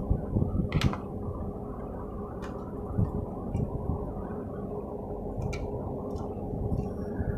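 Steady low hum and whir with a faint steady tone, broken by a few light clicks.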